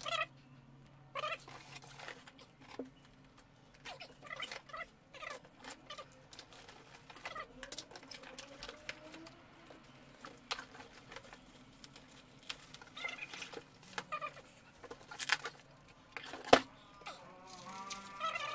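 Packing material being handled: foam packing blocks squeaking and scraping against cardboard, with rustling of cardboard and plastic wrap in short irregular bursts. A single sharp knock near the end is the loudest sound.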